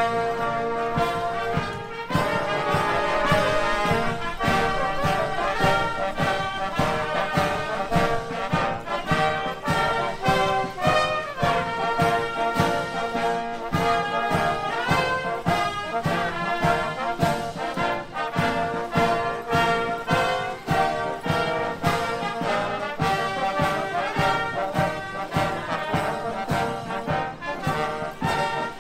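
Military brass band playing a march while marching: trombones and trumpets in full harmony over a steady drumbeat.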